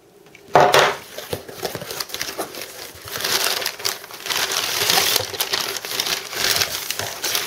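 Packaging being torn open and handled while unboxing a mail shipment: a loud sudden noise about half a second in, then irregular crinkling and rustling of paper or plastic wrapping that grows louder partway through.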